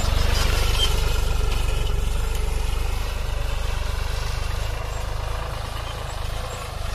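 Tümosan farm tractor's diesel engine running steadily as the tractor drives away across the field, gradually getting fainter.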